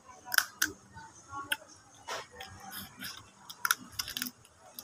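Crab shell cracking and crunching between the teeth while being bitten and chewed. There are irregular sharp cracks, the strongest near the start, about a second and a half in, and past three and a half seconds, with softer chewing noises between them.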